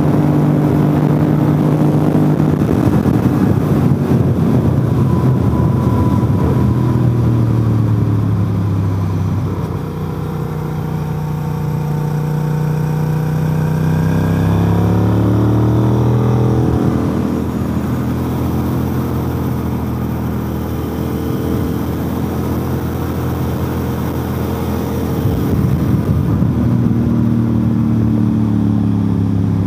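Motorcycle engine heard from on board at track speed, mixed with wind rush. The engine note falls about ten seconds in as the rider slows, climbs again around fifteen to seventeen seconds under acceleration, and drops once more near the end.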